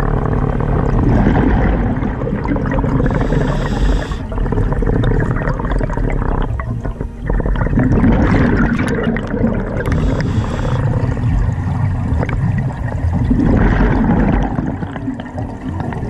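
Scuba diver breathing through a regulator underwater: two short hissing inhalations, with gurgling, bubbling exhalations between them.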